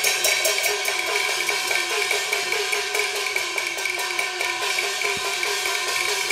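Cantonese opera percussion: gongs and cymbals struck in a fast, even rhythm, each gong stroke ringing with a bending pitch, over sharp clicks.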